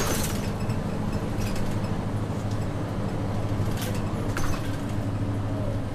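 City route bus engine running steadily while the bus drives, heard from inside the cabin, with a sharp click at the start and a couple of light clicks and rattles about four seconds in.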